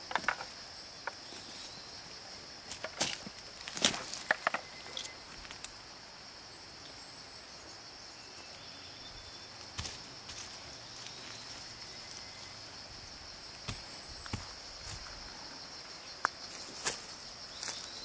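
Steady high-pitched drone of an insect chorus, with scattered short knocks and rustles: a cluster around three to four and a half seconds in, then single ones later.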